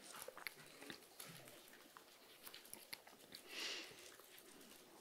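Near silence, with faint small clicks and a brief soft rustle about three and a half seconds in: paper pages, most likely a Bible being leafed through to the passage.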